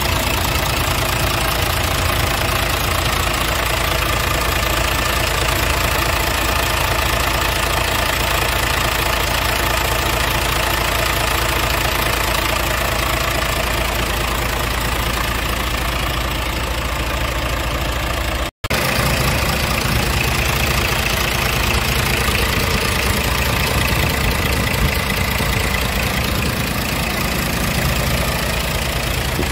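Scania R tractor unit's diesel engine idling steadily, heard close up in the open engine bay. The sound drops out for a split second about two-thirds of the way through.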